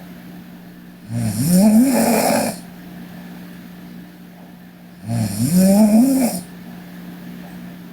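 A sleeping girl snoring: two snores about four seconds apart, each about a second and a half long and rising in pitch.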